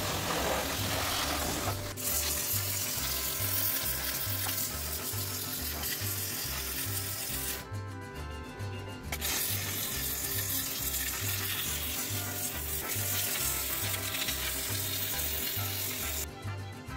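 High-pressure washer's water jet hissing as it sprays a motorcycle. The hiss cuts out for about a second and a half about eight seconds in, and again near the end. Background music with a steady bass beat plays underneath.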